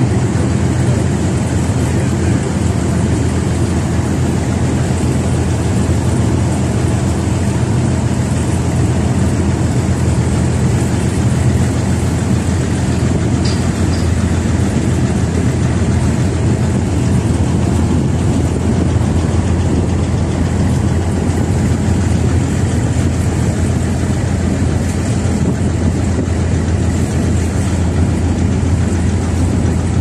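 Excursion boat's engine running steadily under way, a loud, even low drone.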